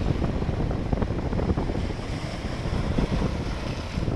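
Sea waves breaking and washing against the boulders of a rock seawall, with strong wind buffeting the microphone in an uneven low rumble.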